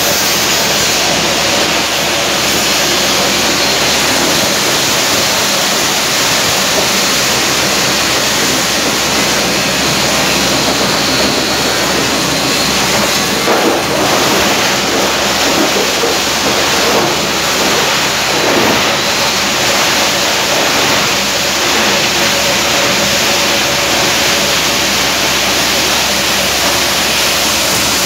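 Kalender plastic crushing machine (granulator) running loud and steady, a dense continuous grinding noise without pauses.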